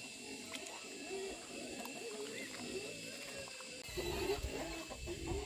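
Young wild boars grunting and squealing in short, bending calls, quiet at first and louder from about four seconds in.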